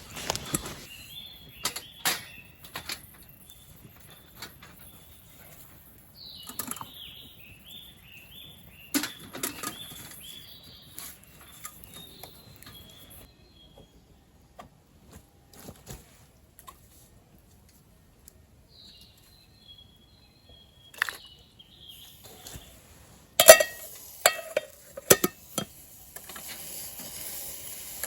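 Scattered clinks and knocks of camp cookware being handled, with a small bird's chirping calls in between, and a cluster of sharp clatters near the end.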